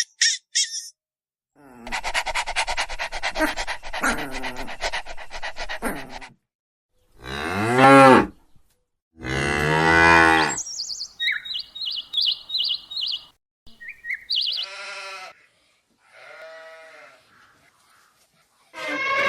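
A string of separate animal calls cut one after another: short high chirps, a rapid buzzing rattle lasting a few seconds, then two loud drawn-out calls that bend in pitch, followed by more high chirps and a few softer calls.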